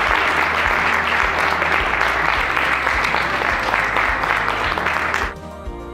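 Audience applause over soft background music; the clapping stops abruptly about five seconds in, leaving the music alone.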